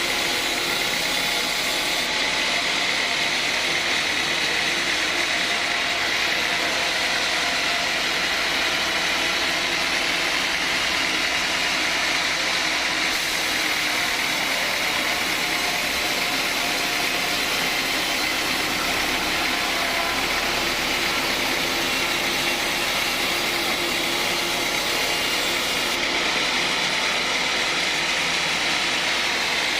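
Sawmill saw running steadily through teak, a constant mechanical noise with a high, even whine over it.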